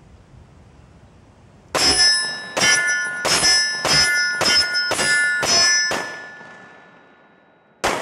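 A 10mm Colt Delta Elite pistol fired eight times in quick succession, about two shots a second, each hit setting the steel silhouette targets ringing; the ring dies away over a second or so, then one more shot comes near the end.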